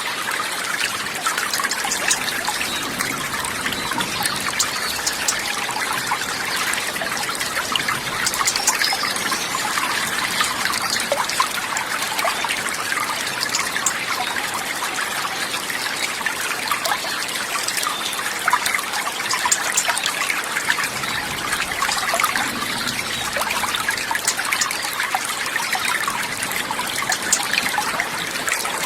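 Water trickling and babbling steadily, a dense run of small splashes with no pauses.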